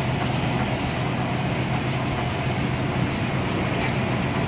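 Steady engine drone and road noise heard inside a coach cruising on a highway, with a constant low hum underneath.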